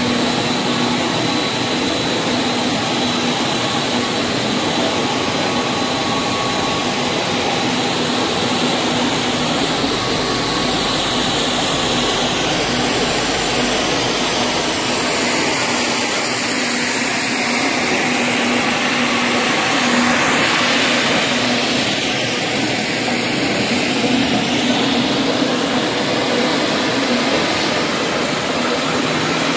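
PET monofilament extrusion line running: a steady whir of motors and drawing rollers, with a steady low hum and a high whine over it.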